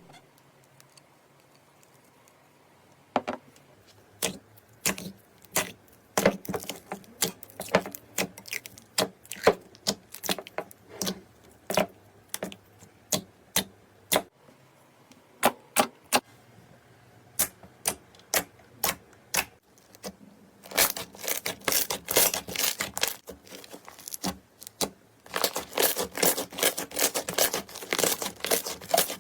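Makeup items being handled, giving a string of sharp clicks and taps, irregular and a second or so apart, starting a few seconds in. Later come two runs of rapid, dense clicking and scratching, one about two thirds of the way through and one near the end.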